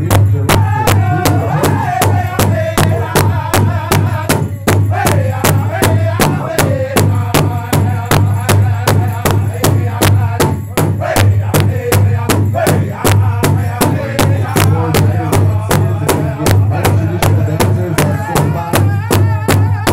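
Powwow drum group striking a large hide-covered powwow drum in unison with padded beaters, a steady beat about four strokes a second, while the men sing a powwow song together over it.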